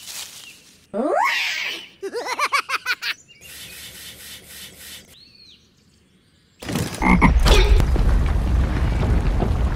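A string of dubbed cartoon sound effects. First a quick rising glide, then a rapid pulsing run of about seven pulses a second, like a croak. From about seven seconds in, a loud low machine rumble for the toy excavator sets in and carries on.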